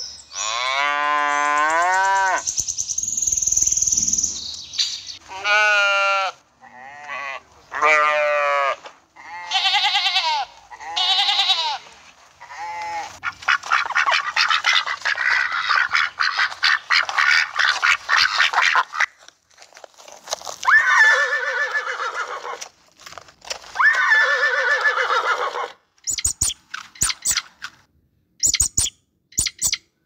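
A sequence of animal calls. A cat meows at the start, then a string of short, wavering bleat-like calls follows. A flock of domestic geese honks and cackles together, then gives two harsher honks, and a rabbit's crisp crunching chews come near the end.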